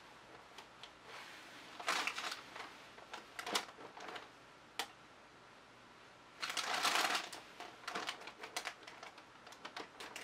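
Handling noise from gloved hands tilting a wet poured-acrylic canvas: scattered clicks and taps, with longer rustling scrapes about two seconds in and again around seven seconds.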